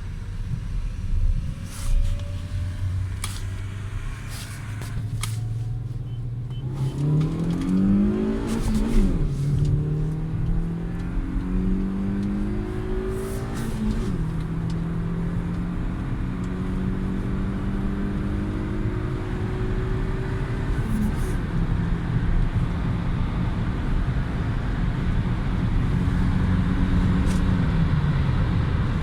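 A car's engine holding low and steady for several seconds, then accelerating hard from a standstill. The revs climb steeply and drop sharply at each upshift, four times, as the car pulls through the gears at full throttle.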